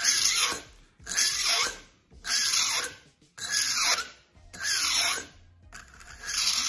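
Flat hand file rasping across the edge of an acrylic piece held in a vise: six forward strokes, about one a second, each a short scrape with a quiet gap between. The file is turned during each push to round the edge over.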